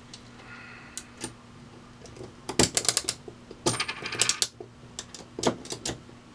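Vintage Beaver bulk vending machine mechanism being turned by hand, its metal parts clicking and clinking. A couple of single clicks come about a second in, then quick runs of clicks through the middle, which are the loudest, then a few more clicks near the end.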